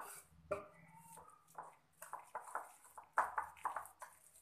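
Wire whisk stirring and scraping through wet semolina and curd batter in a ceramic bowl, a quick run of strokes about three a second.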